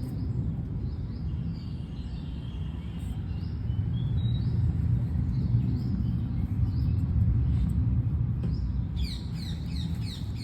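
Small birds chirping on and off, with a quick run of chirps near the end, over a steady low rumble.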